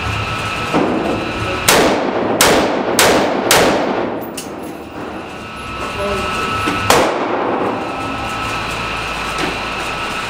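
5.56 rifle fired on an indoor range: four shots in quick succession, about two-thirds of a second apart, starting nearly two seconds in, then a single shot near seven seconds, each with a short echo off the range walls. Fainter shots fall in between.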